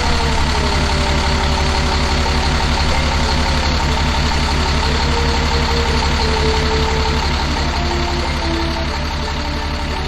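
Fire truck's diesel engine running with a steady, even low throb, and a siren tone falling in pitch as it winds down at the start.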